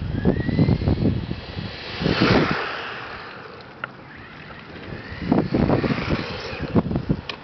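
Exceed Sunfire RC buggy driving, its electric motor whining up in pitch near the start and rushing past about two seconds in, with gusty rumbling wind buffeting on the microphone.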